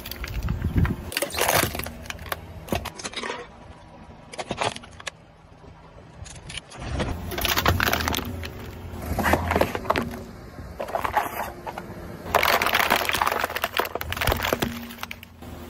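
Crackling, crunching and clattering as a slowly rolling car tyre crushes small objects on asphalt, among them a drink can and a clear plastic box. The crushing comes in several separate bursts, each lasting up to about two seconds.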